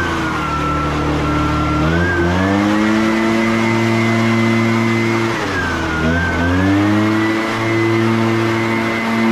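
Gas leaf blower running at high throttle, its pitch dropping as the throttle is eased off at the start and climbing back to full speed about two seconds in; it is eased off again just past halfway and brought back up about a second later.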